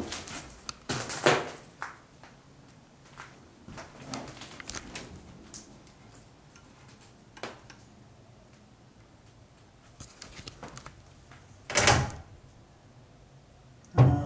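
Old wooden wardrobe doors being opened and handled: a series of separate wooden knocks and clunks, with louder ones about a second in and two more near the end.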